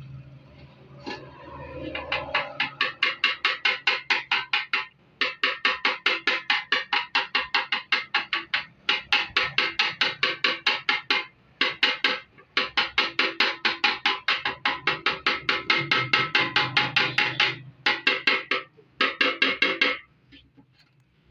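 Rapid, ringing metallic tapping on the steel fuel tank of a Honda CD 70 motorcycle, as a metal punch is knocked against the panel to work out a dent. The taps come several times a second in runs of a few seconds, with brief pauses between runs.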